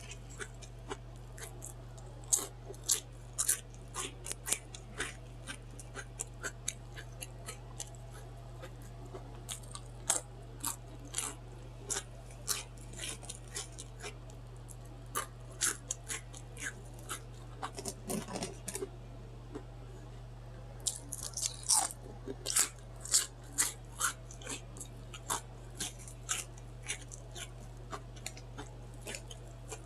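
Close-miked chewing of a loaded Subway sandwich: wet smacking and crunching of bread, lettuce and vegetables, many short sharp mouth clicks one after another, over a steady low hum.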